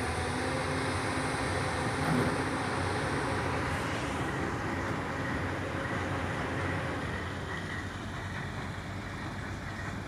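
Diesel engine of a Hyundai R330LC-9S crawler excavator running steadily, easing off a little near the end.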